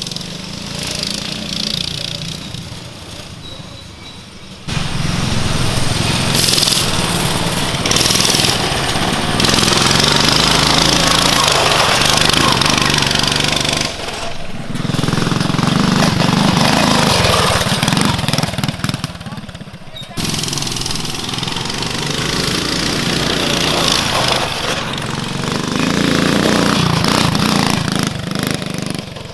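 Stock Coleman CT200U mini bikes' small single-cylinder engines running hard at full throttle as the bikes race over dirt, rising and falling as they pass, with a few sudden jumps in level.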